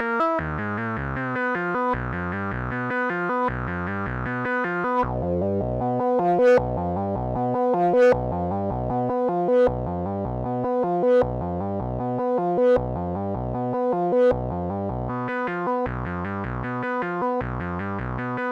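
Eurorack modular synthesizer playing a sequenced pattern: a repeating bass figure under a stream of short pitched notes, with a louder accented note about every second and a half. The upper tones sweep downward in the first couple of seconds.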